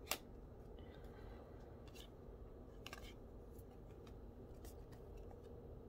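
Soft clicks and flicks of cardboard trading cards being slid off a hand-held stack one at a time, a faint snap every second or so, the sharpest right at the start.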